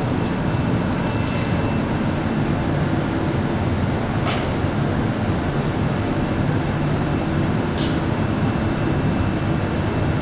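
Steady roar of a hot shop's gas-fired glory hole and furnace burners, heavy in the low end, with a faint high whine over it. Two brief sharp clicks come about four and eight seconds in.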